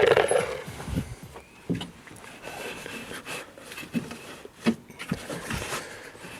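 Irregular knocks, clicks and scrapes of hands and tools handling parts during work on a car's fuel filter, loudest right at the start.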